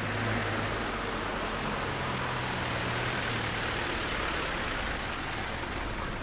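Black taxi cab's diesel engine running as the cab draws up, a steady low hum under a steady hiss.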